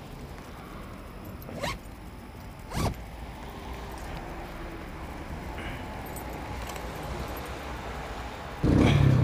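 Zipper on a delivery bag pulled, two quick strokes about a second apart. Near the end a small motorcycle engine, the Honda C50's, starts up suddenly and keeps running.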